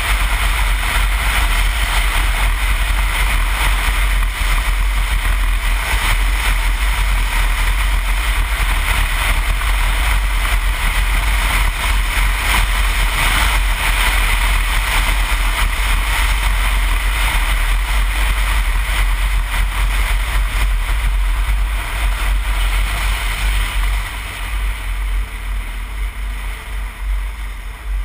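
Wind and engine noise on a helmet camera riding a BMW R1200GS motorcycle at road speed: a loud, steady rush with a deep rumble. About 22 seconds in it eases and becomes uneven, as the bike slows into a curve.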